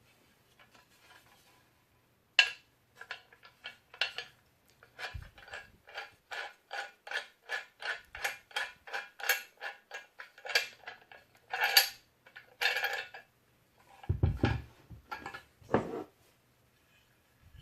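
Metal parts of an angle grinder stand clicking and clinking as they are handled, with a run of evenly spaced clicks, about two or three a second, through the middle. A few louder knocks and a low thud follow near the end.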